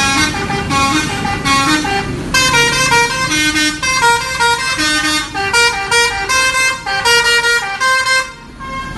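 Bus telolet horn: a multi-tone musical horn playing a quick melody of stepping notes in chords, cutting off about eight seconds in.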